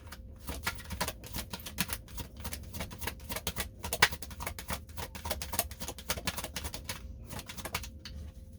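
Tarot cards being shuffled by hand: a dense, irregular run of quick clicks and snaps, with one sharper snap about four seconds in.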